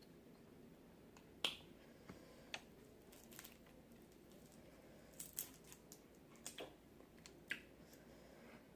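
Mouth sounds of someone eating close to the microphone: scattered short, sharp wet clicks and smacks, a few at a time with a small cluster about five seconds in, over faint room tone.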